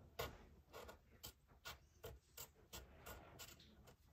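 Faint pencil strokes scratching on paper, short and quick, about two a second.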